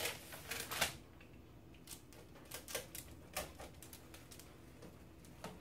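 Handheld pizza wheel cutter slicing through a cauliflower-crust pizza topped with chunky, partly raw vegetables, giving a run of irregular clicks and crunches. The clicks come thickest in the first second, then scattered.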